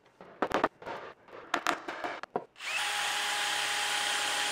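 A few sharp knocks and clicks of wood and tools being handled, then a cordless drill runs at one steady speed for about two and a half seconds, starting a little past halfway.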